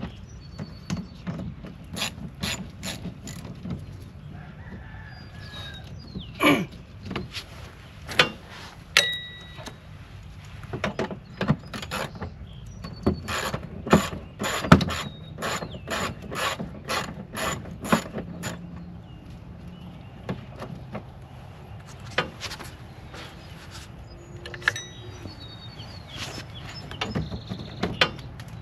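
Hand ratchet wrench clicking in quick runs as bolts are backed out of a car's wheel-well liner, with a few louder knocks in between.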